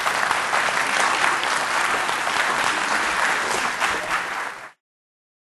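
Audience applauding in a hall: dense, steady clapping that cuts off suddenly near the end.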